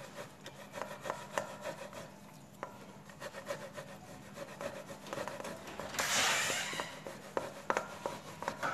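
Stainless-steel box grater rasping through a lump of stiff, clay-like rice-flour dough: a run of light scraping strokes, with a louder stretch of grating about six seconds in.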